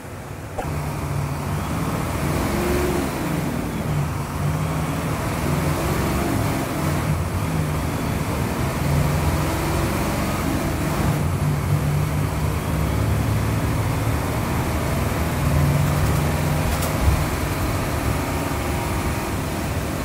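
Mercedes-Benz OF-1721 bus's six-cylinder diesel engine held at high revs while the bus stands still. It steps up in loudness about half a second in, then runs steadily. There is one short knock late on.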